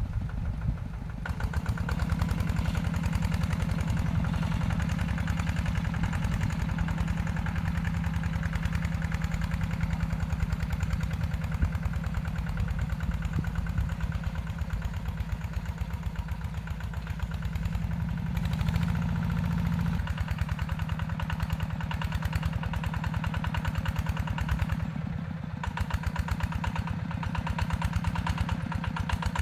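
Yanmar TF120 single-cylinder diesel engine of a walk-behind two-wheel tractor running steadily under load while plowing, a fast, even chugging. The engine note rises briefly about two-thirds of the way through.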